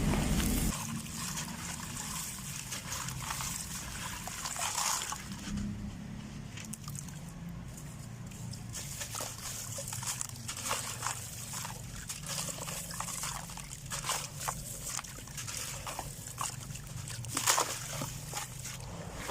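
Dried sand-cement crumbling and crunching, with irregular small crackles and a louder crunch near the end. A low rumble cuts off under a second in.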